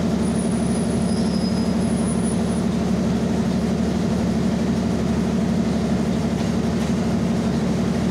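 KRL 205 series electric commuter train pulling slowly into the platform: a steady rumble with a low hum. A faint high squeal sounds during the first couple of seconds.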